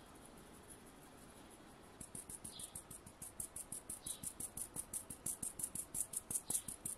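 Fine stainless-steel mesh sieve shaken in a quick even rhythm, ground roasted date seed powder sifting through the mesh with a soft hiss at first, then about five rustling bursts a second from about two seconds in, growing louder.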